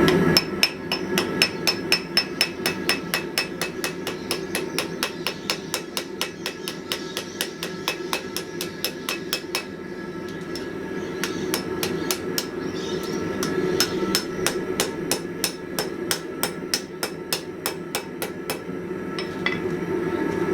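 Hand hammer striking steel on an anvil in a long steady run, about three to four blows a second. Each blow rings metallically, as a blacksmith forges a flat-stock hinge strap. A steady roar runs underneath.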